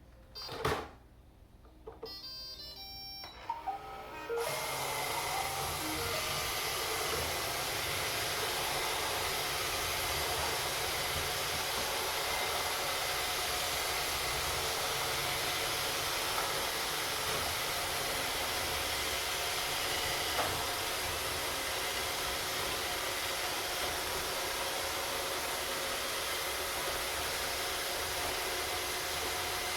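Three Roomba robot vacuums starting up: a run of short electronic tones about two to four seconds in, then from about four seconds the steady whirr of their vacuum and brush motors running.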